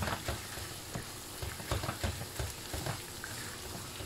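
Minced meat with pepper and tomato paste sizzling as it fries in a pan, stirred with a wooden spoon that scrapes and knocks irregularly against the pan.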